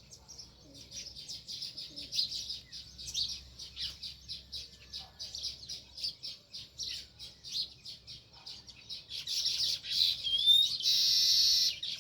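House sparrows chirping rapidly and continuously, many short chirps overlapping. Near the end, a loud, harsh sound about a second long rises above the chirping.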